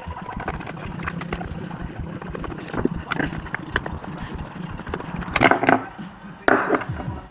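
Small clicks, taps and scraping of hard plastic parts being worked loose and handled while a mirror cover is taken off, with louder clusters of rattling a little over five seconds in and again near the end.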